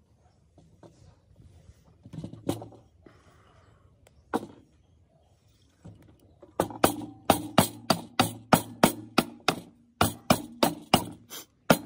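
A few isolated clicks, then a rapid, even series of sharp knocks, about three a second, each with a short ring, beginning a little past halfway.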